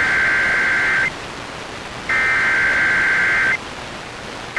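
Emergency Alert System SAME header: harsh, buzzing digital data bursts, each about a second and a half long with about a second of radio hiss between them. One burst ends about a second in, a second runs through the middle, and a third begins at the very end. This header marks the start of an alert, here a severe thunderstorm warning.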